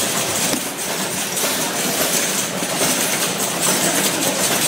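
Automatic cartoning machine running: a steady mechanical whir with faint irregular knocks from its moving parts.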